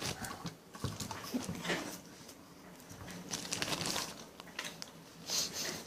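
Scattered soft crinkling and rustling of a plastic bag of marshmallows being handled, in short separate bursts.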